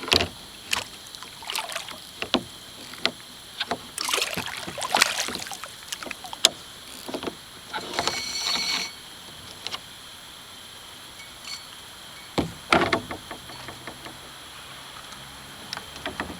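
Scattered splashes and sharp knocks against a kayak's hull as a large flathead catfish thrashes while being landed. There is a short rasping scrape about halfway through and a loud burst of splashing and knocking about three-quarters of the way in.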